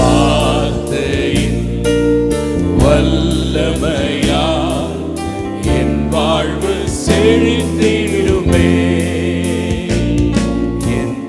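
Tamil Christian worship song: a man's voice singing over instrumental backing with sustained bass notes.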